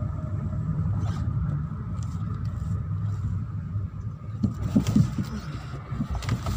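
Car driving, its engine and tyre noise heard from inside the cabin as a steady low rumble, with a few short thumps about four to five seconds in.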